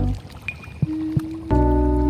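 Background music of held chords over a deep bass, with light clicking beats. It thins to a single note just after the start and swells back to full chords about a second and a half in.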